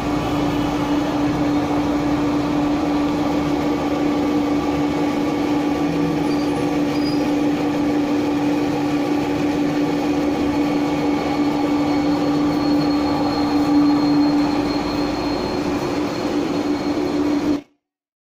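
Motor-driven instant rice grinder running steadily under load, grinding rice into idli/dosa batter, with a constant hum over a steady grinding noise. The sound cuts off suddenly near the end.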